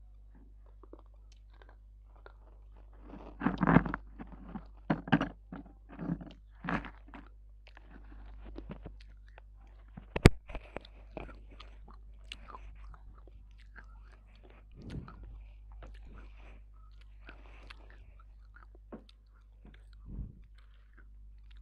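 Close-miked biting and chewing of dry edible clay pieces: irregular crisp crunches, densest a few seconds in, with one loud sharp snap about ten seconds in, over a faint low hum.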